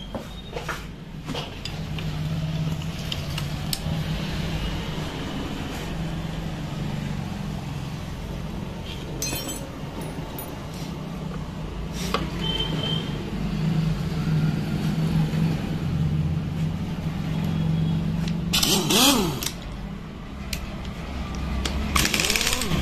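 Metal tools and parts clinking now and then while a motorcycle engine is being worked on, over a steady low motor drone, with two louder noisy bursts near the end.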